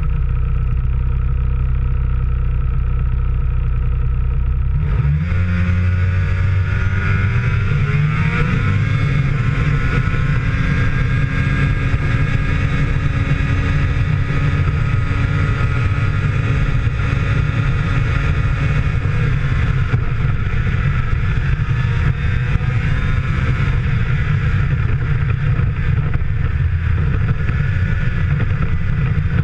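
Arctic Cat snowmobile engine running under throttle. About five seconds in it revs up, its pitch rising for several seconds, then holds steady at speed, with a rushing hiss from then on.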